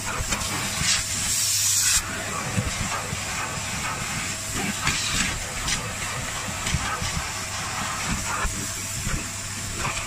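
Kärcher carpet extractor running, a steady motor hum under the hiss of suction through the hose and nozzle. A louder hiss starts about a second in and cuts off suddenly at two seconds, and shorter rushes come and go as the nozzle works the carpet.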